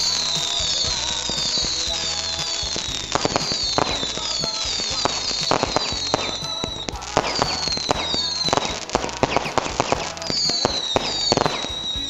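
Fireworks going off: a string of short whistles, each falling in pitch, over a rapid crackle of bangs that thickens from about three seconds in.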